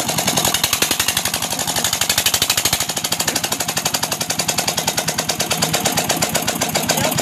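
Petter stationary diesel engine running just after start-up: a fast, even chugging of about eight beats a second.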